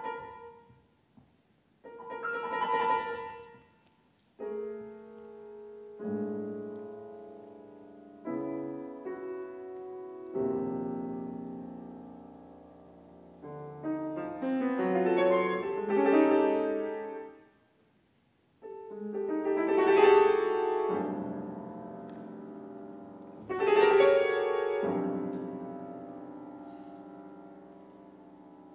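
Grand piano playing a solo passage of a contemporary art song: chords struck one after another, each ringing and dying away, with several louder, fuller clusters and two brief pauses.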